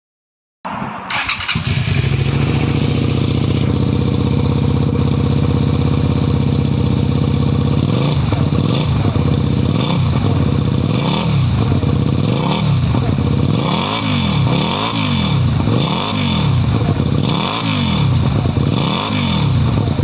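Suzuki Gladius 400's 400 cc V-twin engine starting up about half a second in and idling steadily through its aftermarket muffler. From about eight seconds in the throttle is blipped repeatedly, around once a second, the engine note rising and falling with each rev.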